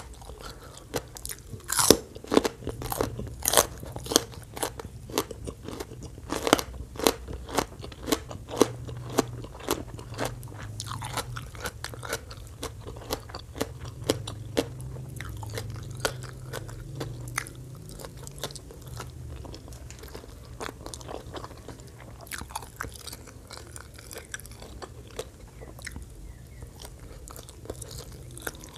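Close-miked crunching and chewing of raw vegetables and shredded green papaya salad: a fast run of loud crisp bites and crunches, easing into softer, sparser chewing after about twelve seconds.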